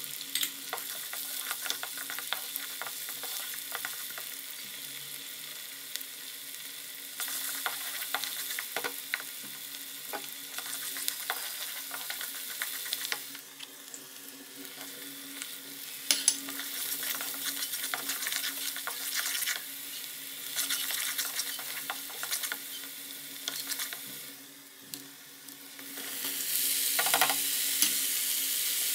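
Onion and tomato masala sizzling in hot oil in a karahi, with a wooden spoon stirring and scraping in many short clicks against the pan. The sizzle dips briefly twice and grows louder near the end.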